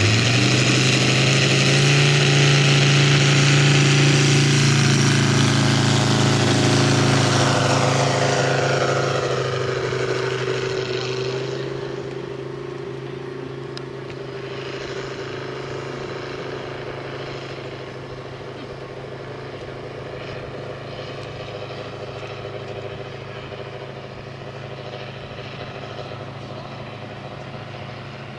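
Valach VM R5-420 five-cylinder radial engine of a half-scale model aircraft running at full throttle on takeoff, loud at first, then its note falls and fades as the plane climbs away, running on more quietly.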